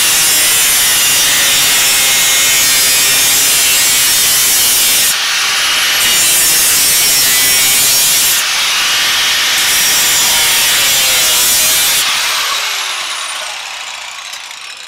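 Angle grinder with a cut-off disc cutting through metal pipe: a loud, steady grinding screech that dips briefly twice. Near the end the disc comes off the work and winds down with a falling whine.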